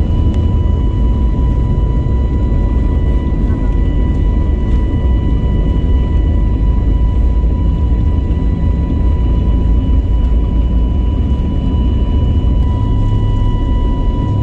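Cabin noise of a jet airliner on its takeoff roll: a loud, steady, heavy rumble from the engines at takeoff power, with a steady high whine over it.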